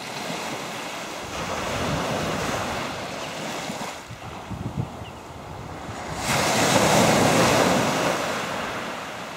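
Small waves breaking and washing up a shingle beach. A bigger wave crashes about six seconds in, the loudest part, then slowly dies away. Wind buffets the microphone.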